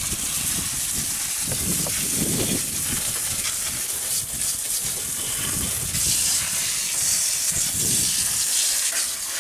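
Jet of water spraying and splashing over a car's engine bay, rinsing off degreaser. It is a steady hiss that gets louder about six seconds in.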